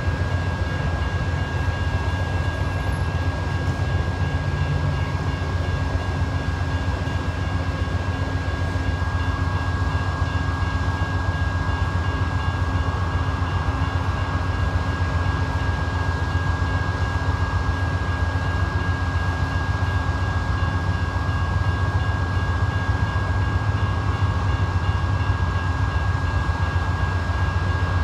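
Amtrak GE Genesis diesel locomotive running steadily while standing at a grade crossing: a constant low engine rumble with a steady whine on top. The crossing bell rings faintly and repeatedly through it.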